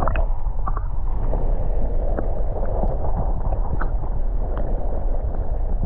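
Lake water heard through a submerged microphone: a steady, muffled low rumble with scattered small clicks and gurgles.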